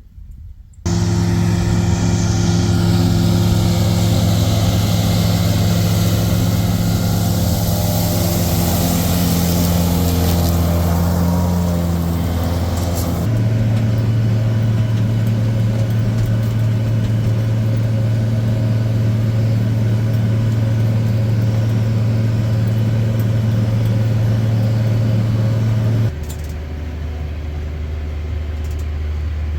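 Tractor engine running steadily under load while mowing hay, its pitch jumping abruptly twice as the footage cuts.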